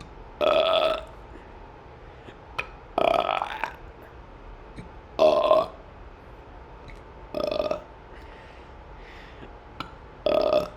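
A person burping on purpose, five loud burps in a row about two seconds apart, each lasting under a second.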